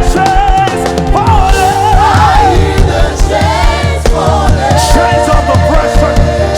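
Live gospel worship music: a band with sustained chords and a steady drum beat under wordless, melismatic singing with choir voices.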